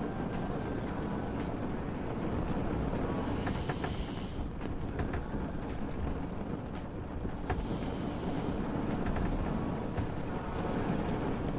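Rain-and-boat ambience: a steady low rumble with a rain-like hiss over it, broken by occasional small clicks or drips.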